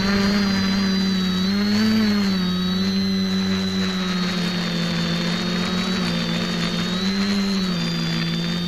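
X550AIOP quadcopter's electric motors and propellers running, heard through the camera mounted on the craft itself: a steady buzzing hum whose pitch rises and falls slightly every few seconds as the motors change speed, with a thin high whine over it.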